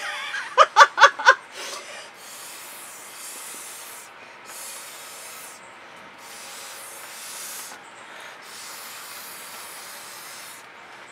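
Breath blown through a drinking straw onto wet poured acrylic paint: four long hissing puffs, each about one and a half to two seconds, with short pauses between.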